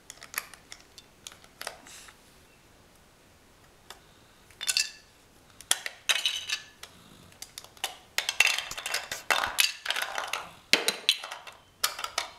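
Large plastic toy building bricks clicking and clattering as a small child handles and stacks them: a few scattered clicks at first, then a busy run of clatter from about four seconds in, thickest towards the end.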